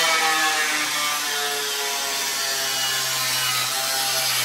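Corded electric grinder with a cut-off wheel cutting through a car's sheet-metal front fender, sparks flying: a loud, steady, harsh whine whose pitch sags slightly as the wheel bears into the metal.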